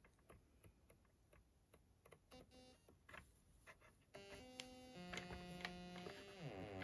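Mutable Instruments Braids synthesizer oscillator module: about four seconds of near silence with faint clicks as its knobs and encoder are handled, then quiet synth notes start up, stepping in pitch, with a falling pitch sweep near the end.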